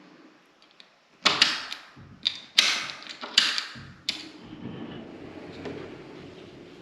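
Pocket door and its privacy latch being worked: a quick series of about five sharp clicks and knocks, then a softer low steady noise.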